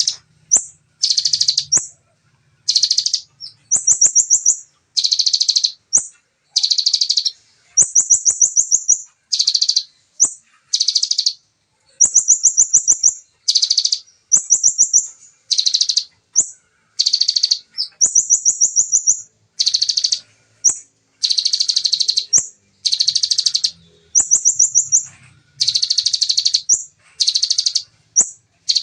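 Bar-winged prinia (ciblek) singing its fast 'tembakan' song: high, rapid trilled bursts of about half a second to a second each, repeated over and over with short pauses between them.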